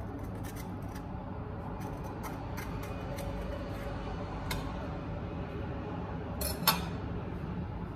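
A table knife scooping avocado out of its skin and spreading it on sourdough toast: light scrapes and clicks, with the loudest scratchy scrape a little over six seconds in. A steady low hum runs underneath.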